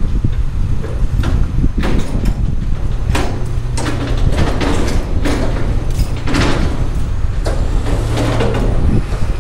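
A heavy vehicle engine running steadily at a low hum under a string of irregular metallic clanks and knocks from crane unloading work.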